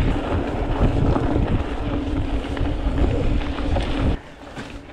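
Wind buffeting the microphone and a rumbling hum from a mountain bike riding fast down a trail. It drops off suddenly about four seconds in, as the bike slows or stops.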